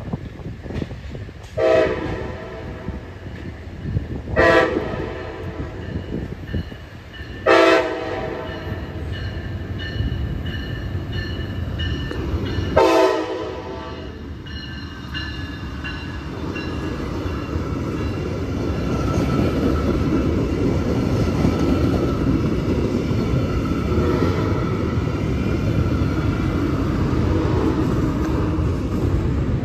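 Locomotive horn blown four times, the last two blasts longer. Then the train rumbles past, wheels running on the rails.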